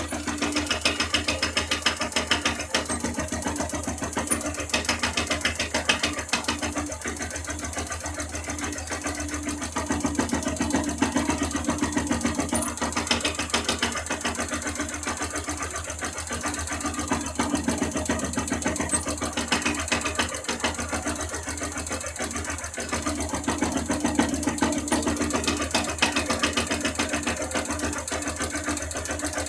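Motorcycle engine idling with a fast, even mechanical clatter: the strange noise that shows up when the clutch is operated. A humming tone within it swells and fades several times.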